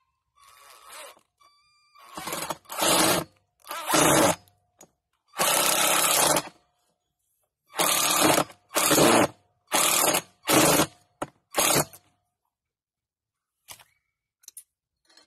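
Cordless drill running in about ten short bursts, stopping and starting, as it drives a screw.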